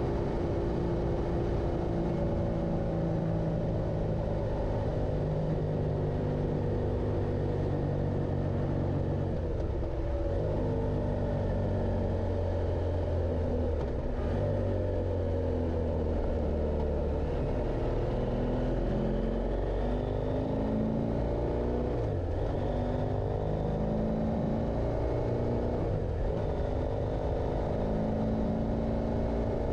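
Motorcycle engine running under way, its pitch climbing and falling with the throttle, with two quick drops and recoveries, one near the middle and another about two-thirds through.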